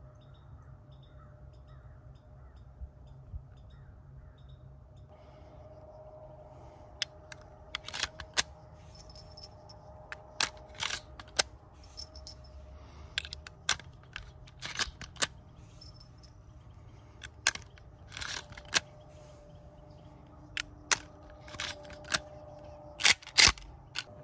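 Winchester Model 1894 lever-action rifle being handled and its action worked: a run of sharp metallic clicks and clacks in quick clusters, starting about seven seconds in, over a quiet background.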